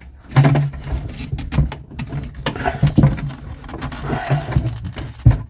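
Low straining grunts from a person, with repeated metal knocks and scrapes as an old garbage disposal is twisted and worked loose from its mount under the sink. One sharp knock stands out near the end.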